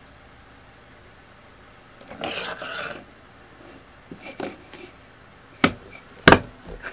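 Folded paper rustling, then a hand stapler pressed down with two sharp clacks near the end as it staples the paper kite.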